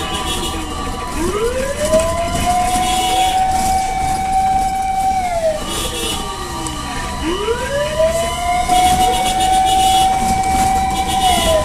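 Fire truck sirens wailing in slow cycles, each rising quickly, holding high for a few seconds, then falling, about every six seconds. A second siren sweeps out of step with the loudest one, over steady engine and road rumble.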